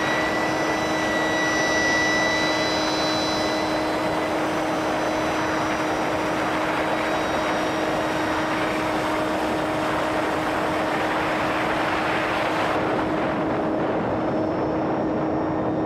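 Small electric RC airplane motor and 5-inch propeller in flight, a steady hum and whine over a dense rush of air noise.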